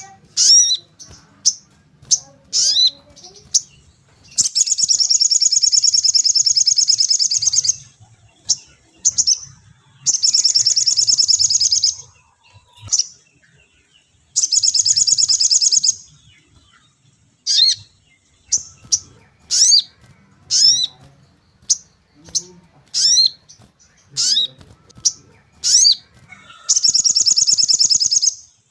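Sogon bird (sogok ontong, a spiderhunter) singing: sharp, high 'cuit' chirps that slide downward, repeated about once a second, broken by four long, fast trills of two to three seconds each.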